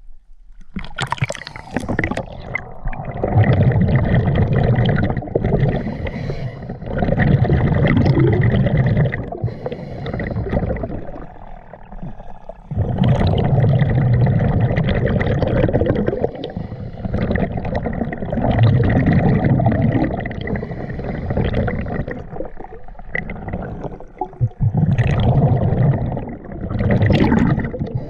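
Scuba diver's breathing heard underwater through the camera housing: regulator hiss with bursts of exhaled bubbles gurgling and rumbling past, a few seconds apart. It starts about a second in.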